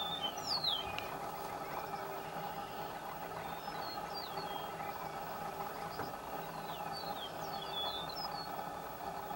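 Greater prairie chickens booming: a steady, low humming drone, with short, high, falling bird calls over it several times.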